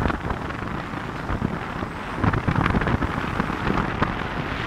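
Wind rushing over the microphone and road noise from a moving pickup truck, heard from its open bed. The rumble swells in uneven gusts.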